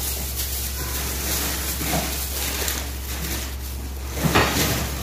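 Steady background hiss and low hum, with soft rubbing and rustling of plastic-gloved hands rolling bun dough into balls on a plastic tablecloth; a louder rub about four seconds in.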